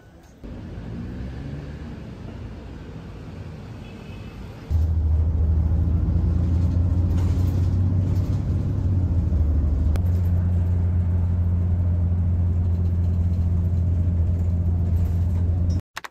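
Steady low engine rumble heard from inside a city bus cabin, which becomes much louder about five seconds in. Before that there is a quieter vehicle rumble with a few rising tones.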